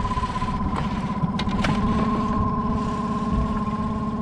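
Boat engine idling steadily, with a steady high tone over its low running note and a few light clicks.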